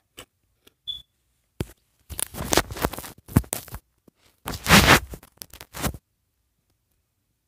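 Scraping and rustling noises in irregular bursts that stop about six seconds in.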